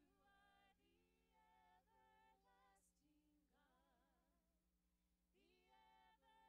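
Near silence, with only a very faint trace of a sung melody over a low steady hum.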